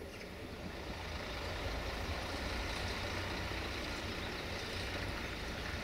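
Articulated lorry driving past, a steady low engine rumble with road noise that builds slightly over the first second or two.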